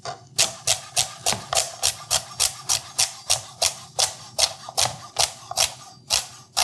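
A Henckels Elan santoku knife chopping celery on a plastic cutting board: crisp, even knocks of the blade through the stalk onto the board, about three or four cuts a second.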